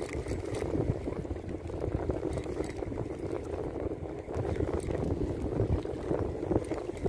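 Shallow sea water lapping and sloshing against shoreline rocks, with wind rumbling on the microphone.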